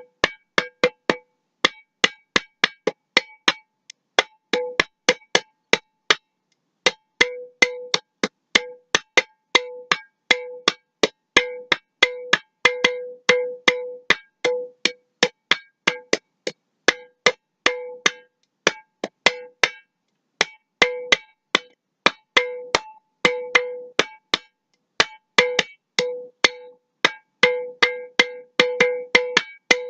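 Glass mason jar being struck as a percussion instrument in a loose, irregular rhythm of sharp taps, about two to three a second, with a short pause about six seconds in. Many of the taps leave a brief ringing note of one steady pitch.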